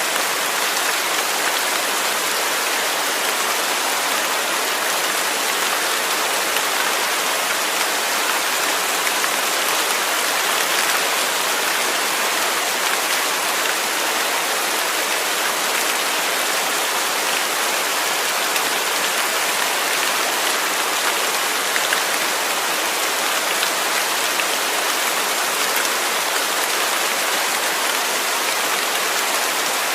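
Steady rain falling, with no thunder: an even, unbroken hiss of many drops.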